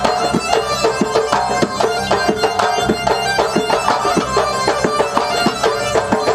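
Live folk band music over PA speakers: a sustained melody over a fast, steady hand-drum beat of about four strokes a second.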